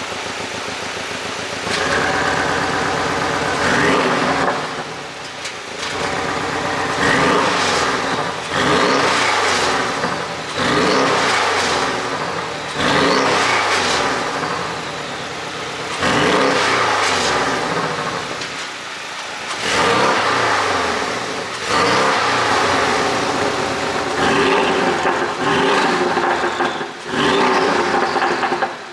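Porsche 718 Boxster GTS's turbocharged 2.5-litre flat-four idling briefly, then revved again and again, about a dozen times, roughly every two seconds. Each rev rises and falls, with pops and crackles from the exhaust on the overrun from an ECU tune that is tuned for pops.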